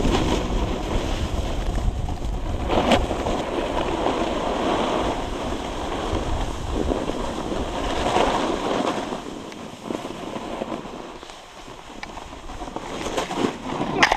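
Snowboard sliding and scraping over snow: a rushing hiss that swells and fades, with wind rumbling on the microphone that drops away about nine seconds in.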